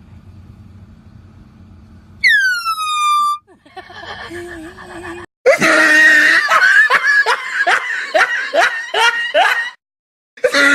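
A loud air horn blast about two seconds in, lasting about a second and dropping in pitch. A voiced outburst follows, then a long stretch of laughter in quick pulses, which breaks off and starts again near the end.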